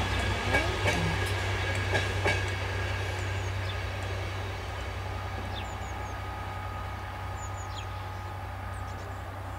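Passenger train running past and drawing away: a few wheel clicks over the rails in the first couple of seconds, then a steady low rumble that slowly fades. Birds chirp faintly now and then.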